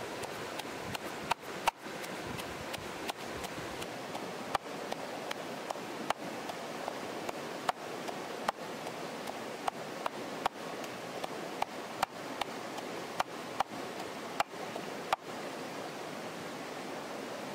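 Wooden pestle pounding garlic and fresh spices into a paste in a mortar: dull knocks a little more than once a second that stop near the end, over a steady rushing like a stream.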